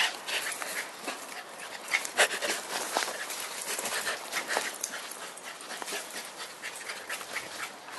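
A Jack Russell terrier puppy making small vocal sounds as it dashes about, among many irregular scuffs and clicks.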